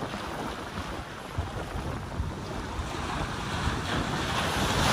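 Wind buffeting the microphone over surf washing against the jetty rocks, the wash swelling near the end.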